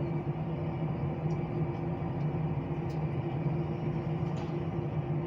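Steady low engine drone with a constant hum and no change in pitch or level, a few faint clicks on top.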